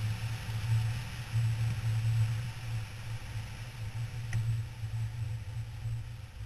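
KTM 990 Adventure R's V-twin engine running at cruising speed, a steady low drone under wind rush on a helmet-mounted camera. It gets somewhat quieter toward the end.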